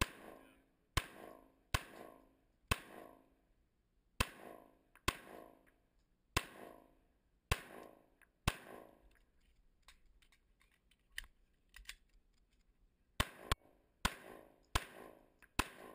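Handgun shots fired one after another during a timed course of fire, each shot followed by a short echo. Eight shots come at roughly one-second spacing, then a pause of about four seconds with a few faint clicks, then five quicker shots near the end.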